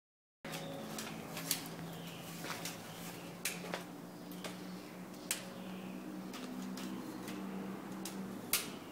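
Opens with a moment of dead silence, then handling noise from a camera tripod being set up and adjusted: a handful of sharp clicks and knocks, scattered irregularly over a low steady hum.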